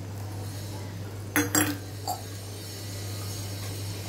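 A small steel cup clinks against a stainless steel pot: two sharp metallic knocks close together about a second and a half in, then a lighter one. A low steady hum runs underneath.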